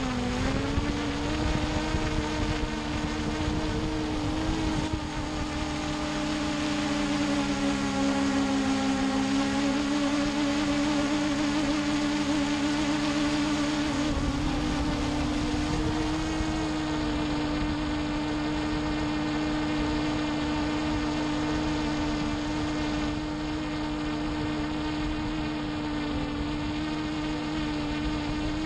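Hubsan H501S quadcopter's brushless motors and propellers in flight, heard up close from the camera mounted under the drone: a steady buzzing whine whose pitch dips and rises a little a few times as the throttle changes.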